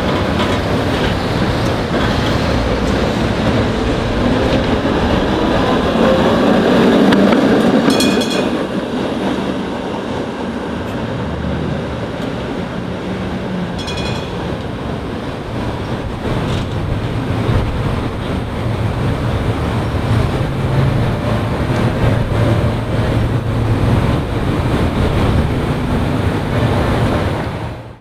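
Restored PCC streetcars running on street tracks: a steady rumble of wheels on the rails and running gear, mixed with city street noise. Two short, high rings stand out, about a third of the way in and again about halfway through.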